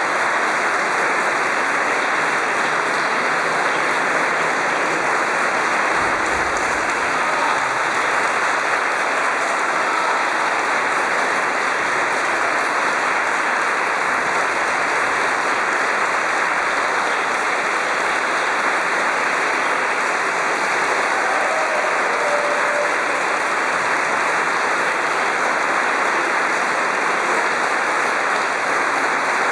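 Audience applauding steadily, a dense, even clapping that holds at one level.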